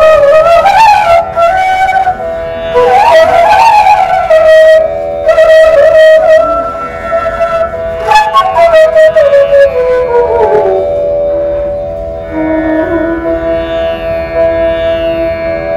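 Bansuri (bamboo transverse flute) playing an ornamented melody with sliding notes over a steady drone. In the second half the melody glides down and holds a long low note.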